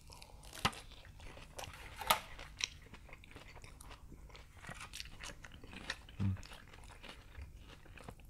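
Close-miked chewing and crunching of crisp lettuce and vegetables from burrito bowls, a run of sharp wet clicks with a few louder crunches in the first few seconds.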